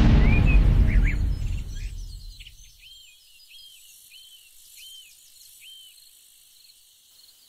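Dramatic background music fading out over the first two seconds or so, giving way to faint outdoor ambience in which a bird calls a run of about six short rising-and-falling chirps.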